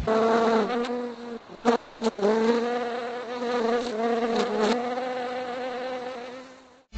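Insect buzzing, a steady buzz that wavers slightly in pitch. It breaks off twice briefly, with a couple of clicks, about one and a half to two seconds in, then carries on and fades away near the end.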